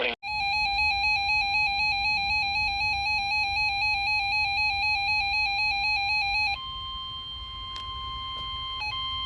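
Weather radio alert tones: a pulsing, warbling electronic tone for about six seconds, then the steady single-pitch NOAA Weather Radio warning alarm tone at about 1050 Hz, which breaks up with short gaps near the end, signalling that a warning message follows.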